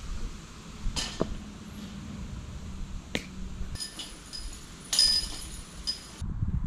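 A few sharp knocks, then from about four seconds in a metallic clinking and jingling of disc golf basket chains struck by a disc, stopping abruptly near the end.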